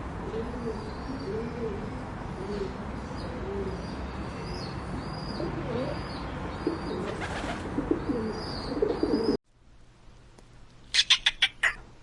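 Pigeons or doves cooing over and over, with faint chirps from small birds above them. The sound cuts off suddenly near the end, and a quick run of short, loud, higher-pitched animal calls follows.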